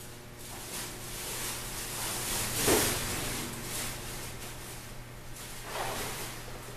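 Soft rustling of a hand rubbing a kitten's fur, with a louder rustle about three seconds in and another about six seconds in, over a steady low hum.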